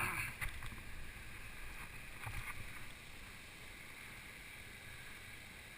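Wind buffeting the microphone in irregular low rumbles over a steady outdoor hiss, with a few short knocks in the first half; the rumbling eases after about three seconds.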